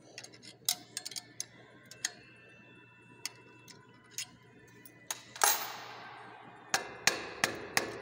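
Sharp metallic clicks and clinks of a small steel wrench working the nuts on a tamper switch's threaded-rod mounting bracket. About five seconds in comes a louder metal clank that rings on for about a second, and then a quick run of sharp clinks near the end.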